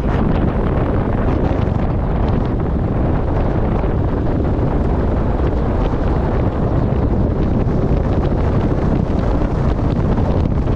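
Piper Pawnee tow plane's engine running, heard from the aircraft under heavy wind rush on the microphone, a steady loud noise during the landing.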